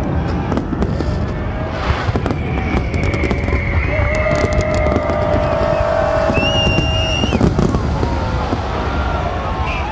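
Large fireworks display: a continuous rumble of shell bursts with many sharp cracks, heard among a crowd whose shouts and long held cries rise over it.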